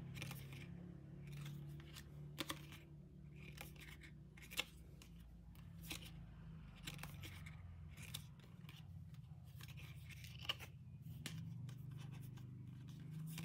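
Small glossy photocards being shuffled from the top of a stack to the back in the hands: scattered soft clicks and brief scrapes of card sliding on card, a few sharper snaps among them, over a low steady hum.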